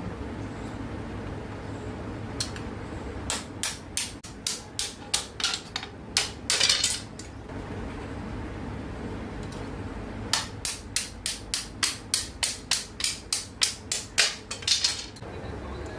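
A hand tool striking bamboo in quick, sharp knocks, about three a second, in two runs of several seconds each. The first run ends in one longer, noisier stroke.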